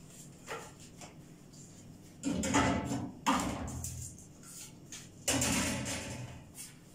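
Kitchen handling noises: three scraping, rustling sounds, starting about two seconds in, again a second later and near the end.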